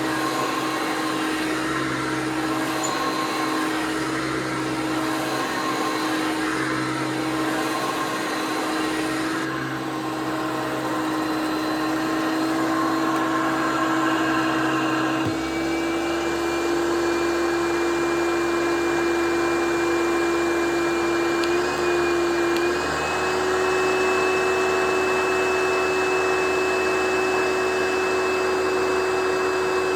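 1993 Hoover PowerMax upright vacuum cleaner running with a steady motor whine. About halfway through, the pitch steps up slightly and it gets a little louder.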